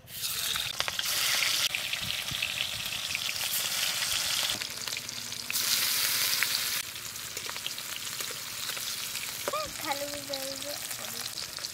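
Pieces of hilsa fish sizzling as they fry in hot mustard oil in a wok (kadai). The sizzle starts suddenly as the fish goes in, is loudest at first and surges again about halfway through.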